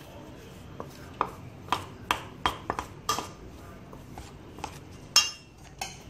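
Irregular knocks and clinks against a stainless steel bowl as flour is mixed by hand, the loudest a ringing metal clink about five seconds in.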